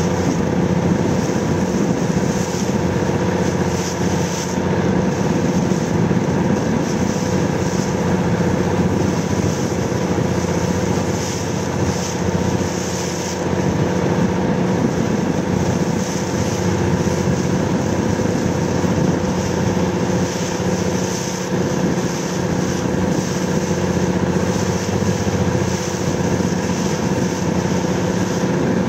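Motorboat engine running at a steady speed, a constant drone with the hiss of wind and water behind it.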